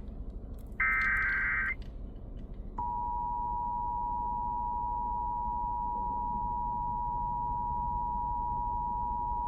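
Emergency Alert System broadcast: about a second in, a one-second burst of the buzzy digital SAME header data. After a short gap, near three seconds in, the EAS attention signal starts: two steady tones sounding together that hold without change. It is the tone that opens an alert message, here a required monthly test.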